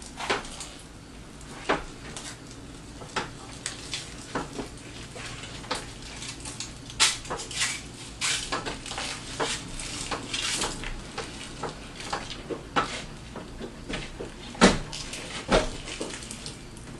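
Irregular metallic clinks and knocks of metal parts and tools being handled, two louder knocks near the end, over a faint steady low hum.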